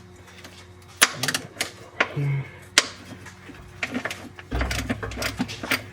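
A ratchet clicking in short, irregular strokes as it loosens a 13 mm transmission-mount nut, with a low rumble for about a second near the end.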